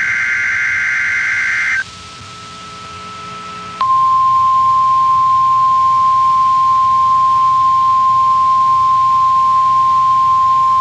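NOAA Weather Radio Required Weekly Test: a buzzy SAME digital header data burst ends about two seconds in, and after a short gap the steady 1050 Hz weather alert tone starts, loud and unbroken.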